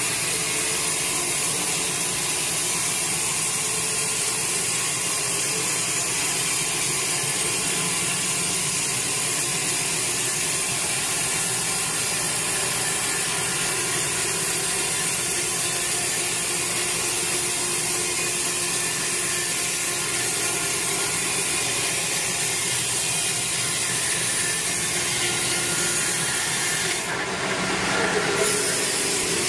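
Sawmill band saw cutting lengthwise through a large teak log: a steady, dense sawing noise. The sound shifts briefly near the end.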